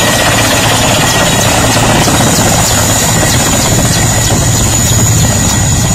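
Mil Mi-8-type twin-turbine helicopter coming in low to land, its main rotor and engines running loudly and steadily, with a thin high whine over the rotor noise.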